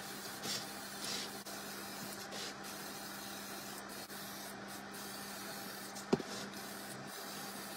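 Aerosol can of clear gloss lacquer hissing as the final medium-to-thick coat is sprayed onto a 3D-printed helmet, in passes with brief breaks. A steady low hum runs underneath, and there is a brief squeak about six seconds in.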